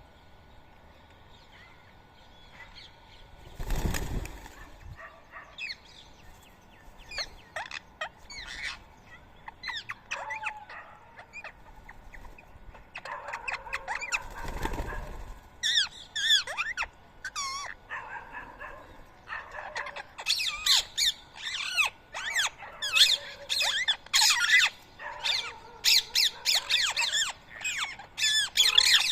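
Rose-ringed parakeets squawking at a feeding spot, short harsh rising and falling calls, scattered at first and then a dense, loud chorus over the second half. Two short, loud whooshes break in, early on and about halfway.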